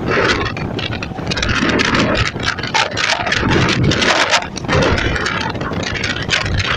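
EMU electric suburban train running at speed, heard at an open doorway: wheels on the rails and rushing wind buffeting the microphone, loud and surging unevenly.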